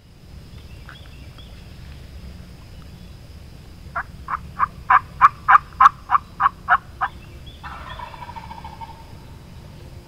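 Wild turkey yelping: a series of about a dozen evenly spaced yelps over some three seconds. A quieter, lower turkey call follows about a second later.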